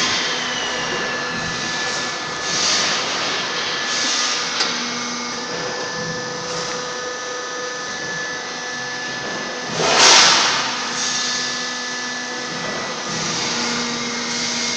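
Sawdust pallet-block press machinery running with a steady electric-motor hum and whine. About ten seconds in, a loud burst of noise lasting about a second comes from the circular cut-off saw cutting through a pressed sawdust block.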